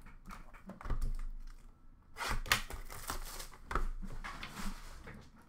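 Sealed trading-card box being ripped open: its wrapping and cardboard torn and crinkled in a run of short rips from about two seconds in, after a few light knocks as the box is handled.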